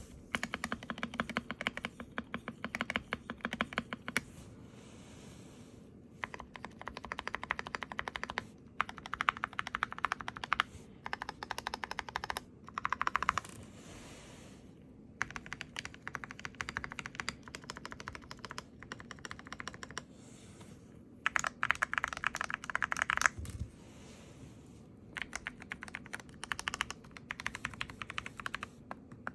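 Mechanical keyboard typing: an Akko PC75B Plus with lubed Akko CS Jelly Purple tactile switches, relubed stabilizers and a tape mod, typed on in fast runs of key clacks broken by short pauses.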